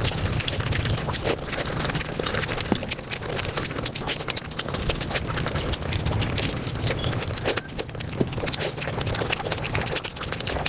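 Close-miked mukbang eating sounds of spicy South Asian food played at five times normal speed: chewing and mouth smacks run together into a rapid, dense stream of sharp clicks.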